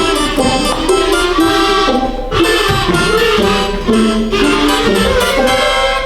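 Children's voices humming a wordless melody in phrases, with short breaks between them, over instrumental accompaniment in a stage song about hummingbirds.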